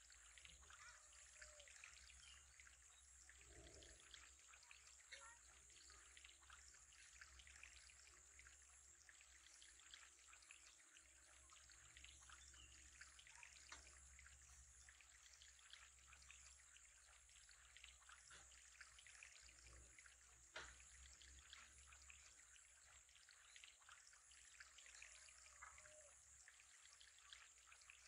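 Faint, steady trickle of water, full of small splashy ticks, over a low hum.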